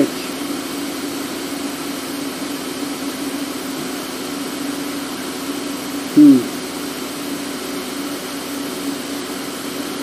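Steady low hum of the 2013 VW Tiguan's engine idling while it misfires on cylinder 4. A short falling vocal sound comes about six seconds in.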